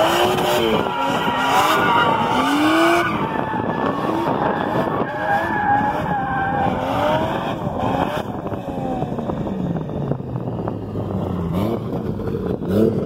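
Toyota Aristo's 1JZ-GTE VVTi turbocharged straight-six with no exhaust, open straight from the turbo elbow, revving up and down over and over while the car drifts, with tyres skidding through the first few seconds. After about eight seconds the revs fall and the engine runs lower as the car rolls in, rising again briefly near the end.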